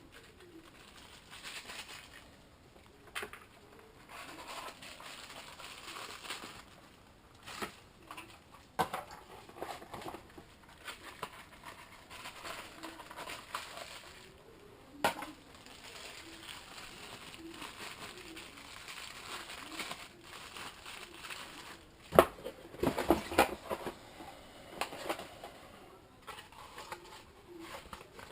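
Packaging and drone parts being handled: soft rustling of wrapping with scattered clicks and knocks as pieces are picked up and set down, the loudest knock about 22 seconds in, followed by a couple of seconds of clattering.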